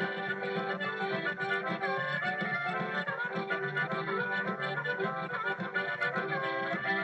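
Accordion music: a lively melody with quick ornamented turns over sustained bass chords.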